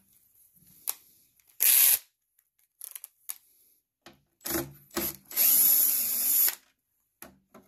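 Cordless DeWalt drill-driver backing screws out of a subwoofer's rear panel: a short burst of spinning about two seconds in, a few small clicks, then a longer run of about a second near the end.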